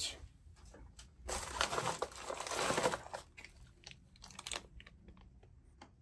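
Plastic packaging (a poly mailer and a small zip-lock bag) crinkling as it is handled: a rustle lasting about two seconds, then a few lighter rustles and ticks.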